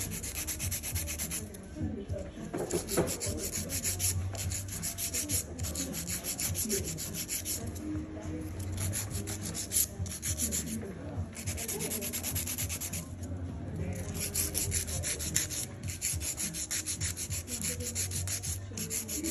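Hand nail file rasping back and forth over acrylic nails in quick strokes, shaping them. The filing comes in several bouts with brief pauses between them.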